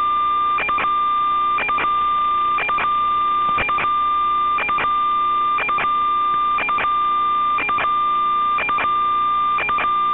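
Steady electronic buzzing tone, high and unchanging, broken by a short dropout about once a second. It is interference on the audio channel of an analog FPV video recording, not the drone's motors.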